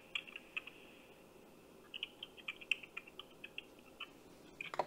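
Computer keyboard typing heard faintly through a phone's speaker: irregular light clicks, a few at first, then a quicker run from about two seconds in. A brief rustle comes near the end.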